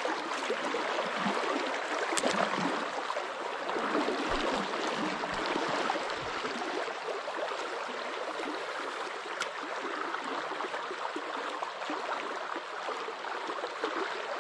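Shallow river flowing steadily: an even wash of moving water, with a couple of faint clicks.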